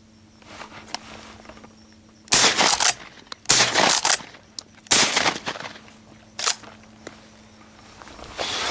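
Three shotgun shots about a second and a quarter apart, each with a short ringing tail, then a fainter crack a moment later.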